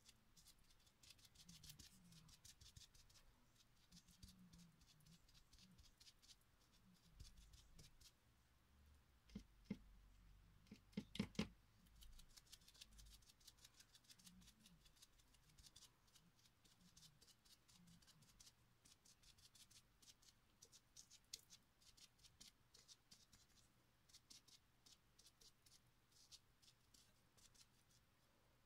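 Faint, irregular dabbing of paint onto a glass vase: soft little taps and scratches, with a few louder knocks about halfway through.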